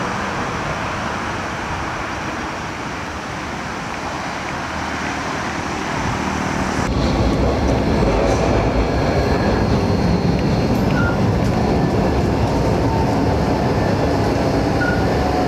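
AnsaldoBreda Sirio tram heard from on board: a steady rumble of wheels on rails with a faint high electric whine. About seven seconds in the sound cuts abruptly to a louder stretch of running.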